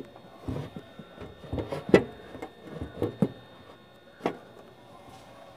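A few scattered light knocks and clicks of kitchen handling, the loudest about two seconds in and another near four seconds.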